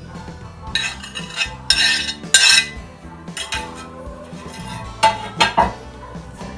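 Chopped vegetables being scraped off a plastic cutting board into a stainless steel pressure cooker: a run of short scrapes and clinks of utensil on board and pot.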